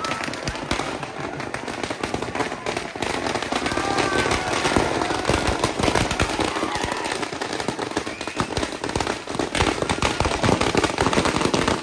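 Firecrackers packed in a burning Dasara effigy going off in a dense, rapid crackle that grows louder near the end. Crowd voices sound faintly beneath.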